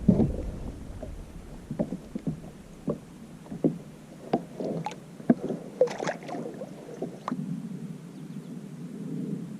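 Irregular hollow knocks and clatter on a plastic Old Town Topwater PDL pedal-drive fishing kayak, about a dozen sharp taps over the first seven seconds, then a steady low hum near the end.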